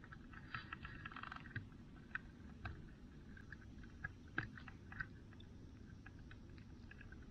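Faint, irregular clicks and crackles: a short cluster of them about half a second in, then single ones spaced a second or so apart.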